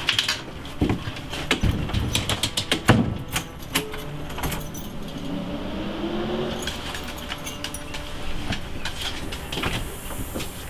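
Keys jangling and a metal security screen door clicking and clacking as it is opened and shut, with one loud knock about three seconds in.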